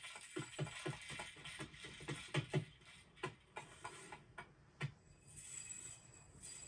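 A run of quick clicks, about four or five a second, thinning out after about three seconds, with a single louder knock near the end.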